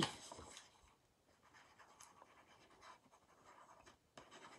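Faint scratching and rustling of card stock being handled on a paper-covered desk, with a few light ticks.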